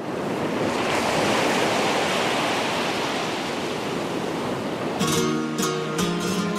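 A steady rush of water. About five seconds in, strummed acoustic guitar music comes in sharply.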